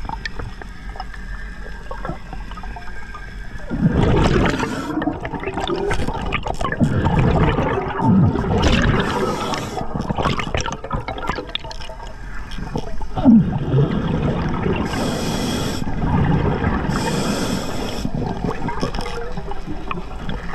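Scuba diver breathing through an Atomic regulator underwater: gurgling bursts of exhaled bubbles and several hissing inhalations, louder from about four seconds in.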